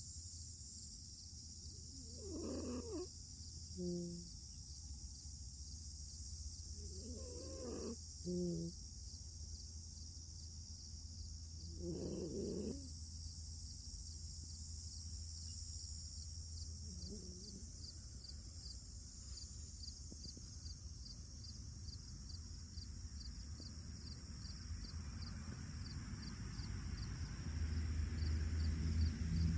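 A sleeping fox snoring, with a slow breath about every five seconds, two of them followed by a short low tone. A low rumble rises near the end.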